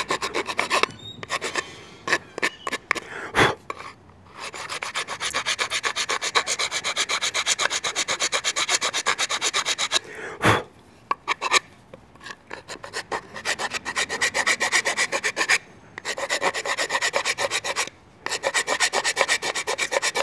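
Hand file rasping back and forth across the wooden tang of an AK buttstock in runs of rapid, even strokes with short pauses. It is taking off a little wood at a time to fit the stock to a new receiver. A couple of sharp knocks stand out between runs.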